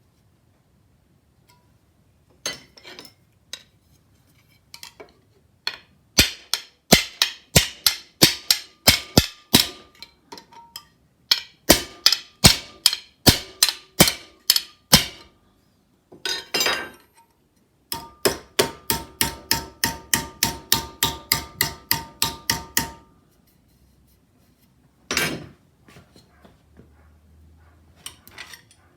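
Hammer striking a thin metal sheet to bend its edge, in two long runs of even blows with a faint metallic ring, the second run faster, then a single blow near the end.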